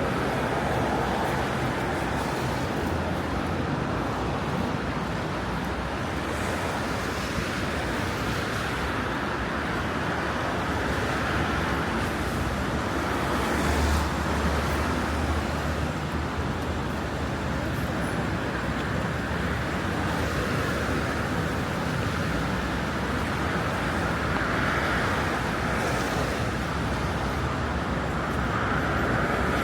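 Rainy city street: the steady hiss of traffic on a wet road, with a heavier vehicle's low rumble passing about 14 seconds in.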